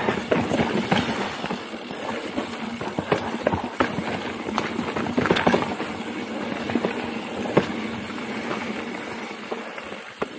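Mountain bike rolling fast down a rocky dirt trail: tyres crunching over dirt and rock, with the bike rattling and knocking sharply over bumps all the way through.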